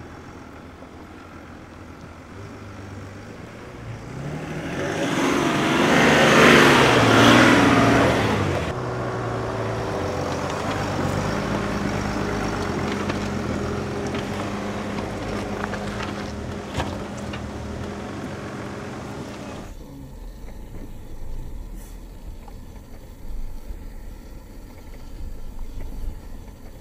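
Mercedes-Benz G-Class SUV driving an off-road trail. Its engine and tyres swell loud and fall away over a few seconds, then the engine runs steadily at low revs. In the last several seconds the sound is heard from inside the cabin, quieter, with a few knocks as the vehicle crawls over rocks.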